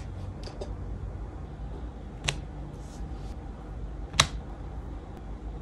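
Hands handling cheese slices and a tortilla on a plastic cutting board: two sharp clicks about two seconds apart, a few fainter ticks near the start and a soft rustle between them, over a low steady hum.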